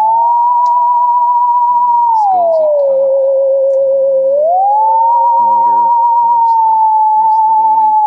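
Eerie theremin-style Halloween music: a single loud tone with a fast vibrato that slides slowly between pitches. It holds high, swoops down about two seconds in, then glides back up about four and a half seconds in.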